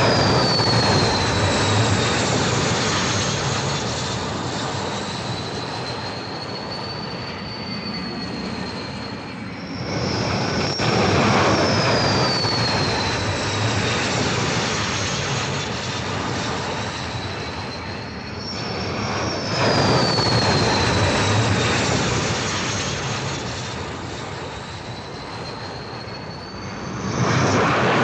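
Carrier jet aircraft at full power, launching in succession roughly every nine seconds. Each launch brings a surge of loud jet noise with a high turbine whine that drops in pitch and then creeps back up as the engine noise settles.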